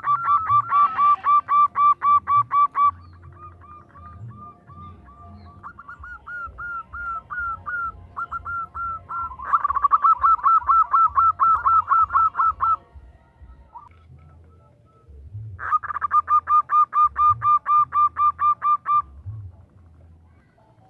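Female zebra dove (perkutut) calling for a male: rapid runs of short, clear cooing notes, about five or six a second, in three loud bouts with softer, slower notes in between.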